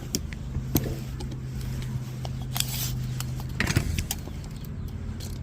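Handling of a tape measure and two long Stanley screwdrivers: light metallic clicks and rattles, a short hiss about two and a half seconds in, and a louder cluster of clicks a little later. A low steady hum sits under the first two-thirds and then stops.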